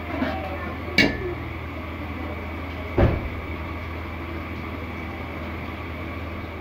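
A metal ladle knocks sharply twice against a large metal cooking pot, about one and three seconds in, over a steady low hum.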